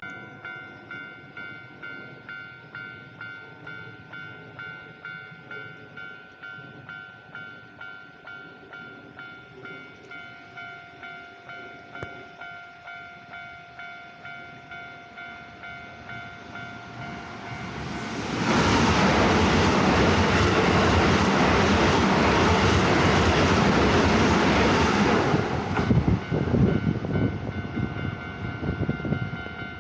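Japanese level-crossing warning bell ringing about twice a second. A Keisei Line electric train passes close by for about seven seconds, starting about 18 seconds in, with loud wheel and running noise. As it clears, its wheels knock over the rail joints while the crossing bell keeps ringing.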